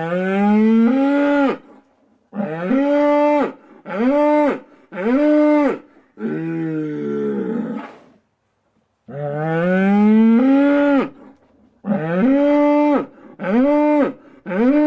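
Cow mooing in a run of calls: a long moo that rises in pitch, three shorter moos, then a lower, drawn-out moo. After a pause of about a second, the same run of calls starts again.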